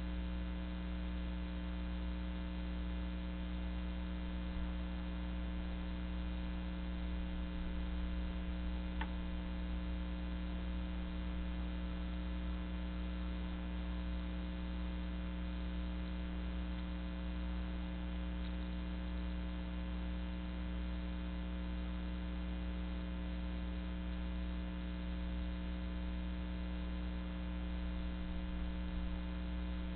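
Steady electrical mains hum with many overtones, the self-noise of the nest camera's audio, with one faint click about nine seconds in.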